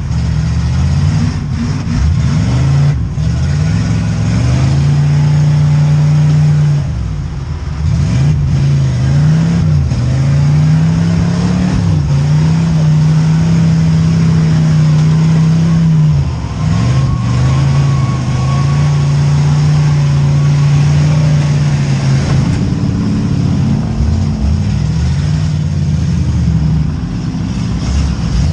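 V8 demolition derby car engines revving hard, held at high revs, with the pitch dropping and climbing back several times as the drivers lift off and floor it again.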